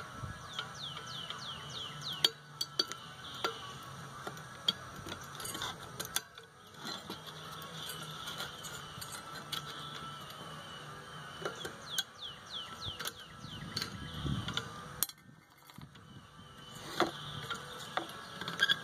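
Screwdriver prying and scraping at a microwave magnetron to work its ring magnet loose: irregular metallic clicks and clinks, metal on metal.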